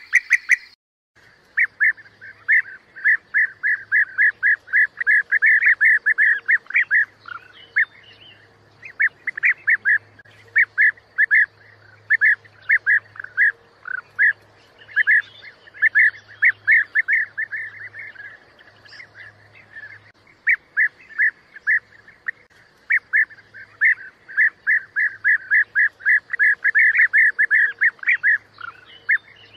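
European bee-eaters calling: runs of short, rolling calls, several a second, with brief pauses between runs. The sound drops out for a moment just under a second in.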